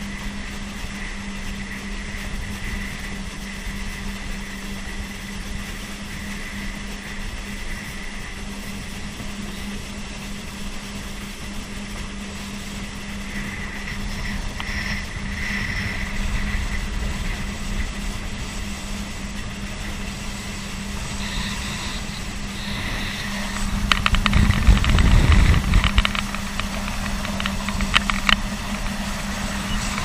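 Motor watercraft's engine running steadily at cruising speed with a constant droning note over the rush of water and wind. About two-thirds of the way in, a louder low rumble swells for a couple of seconds.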